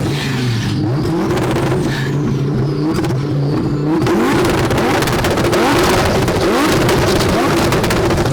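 Twin-turbo Lamborghini Huracan V10 revving hard, its pitch climbing and dropping repeatedly. From about halfway through the exhaust adds rapid popping and crackling.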